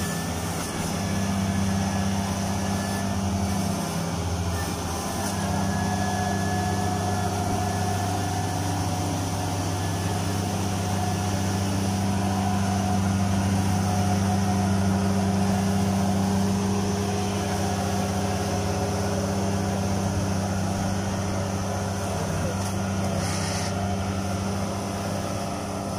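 Diesel engines of tracked Kubota rice combine harvesters running steadily under load, one combine towing another out of deep mud on a cable.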